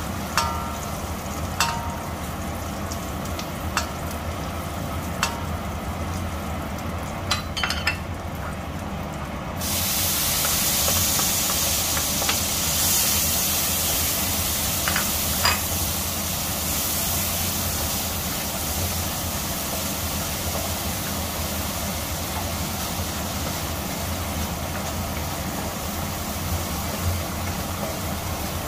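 Frying in a stainless steel wok, with a wooden spatula knocking and scraping against the metal. About ten seconds in, a loud sizzle starts suddenly as chopped carrots go into the hot oil, then settles into steady sizzling while they are stirred, over a low steady hum.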